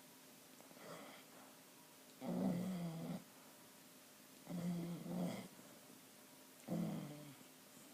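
A dog snoring in its sleep: a faint breath about a second in, then three louder snores about two seconds apart.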